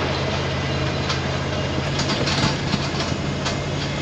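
1994 Ford F-250 pickup driving over a rough, damaged dirt road: a steady low engine drone, with the truck rattling and knocking over the bumps.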